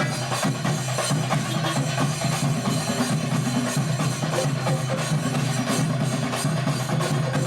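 Sinkari melam, a Kerala ensemble of chenda drums beaten with sticks, playing a fast, dense, unbroken rhythm.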